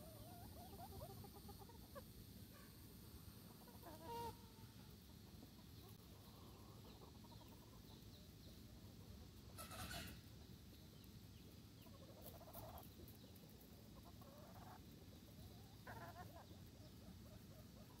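Gamefowl chickens clucking faintly: a few short, scattered calls over a steady low background rumble, with a brief louder noise about ten seconds in.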